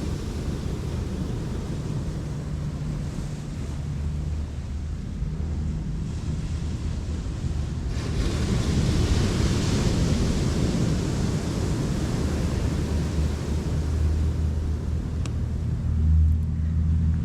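Wind buffeting the microphone over the wash of ocean surf, a steady rumbling noise that swells louder about eight seconds in.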